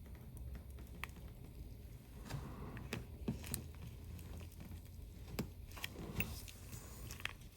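Faint, scattered small clicks and scrapes of watchmaker's tools working on a wristwatch movement as the hands are lifted off, over a low steady hum.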